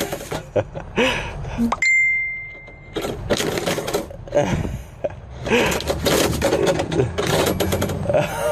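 Paper mail rustling and a metal door mail slot flap clattering as flyers are pushed through it and tugged from the inside. A clear ringing ding lasts about a second, around two seconds in.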